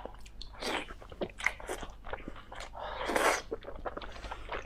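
Mouth sounds of someone biting and chewing food, mukbang-style, in irregular short bursts with a longer, louder one about three seconds in.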